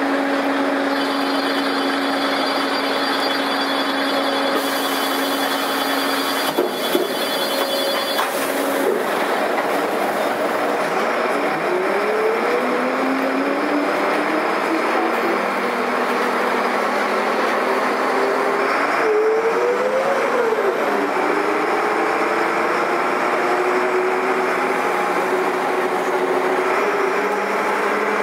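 Karosa B941 articulated city bus's diesel engine, running steadily and then accelerating, its pitch rising, dropping back with each gear change and rising again.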